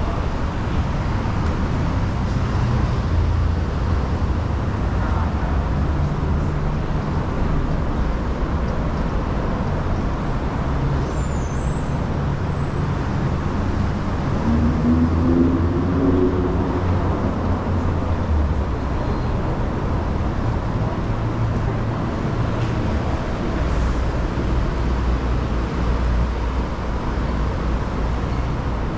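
Steady traffic noise with vehicle engines running, a low rumble that shifts in level, and a vehicle's engine note briefly rising about halfway through.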